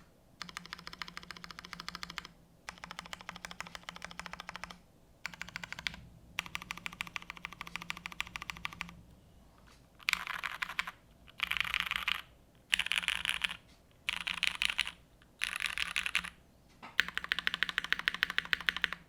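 Fast typing on a tactile mechanical keyboard with Cherry MX Brown Hyperglide switches, GMK doubleshot keycaps, a polypropylene plate and an O-ring mount: rapid runs of key clacks come in bursts of a second or two with short pauses between. The bursts in the second half are louder.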